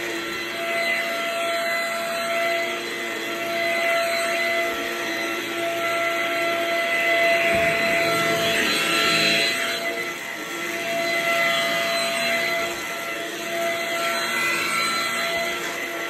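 Cordless stick vacuum cleaner running as its powered floor head is pushed over carpet: a steady high motor whine over rushing air, swelling and easing in loudness with the strokes.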